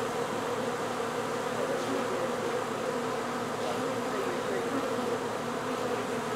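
Swarm of honeybees buzzing in a steady, even hum as they land at a hive entrance and run inside: the swarm moving into its new hive.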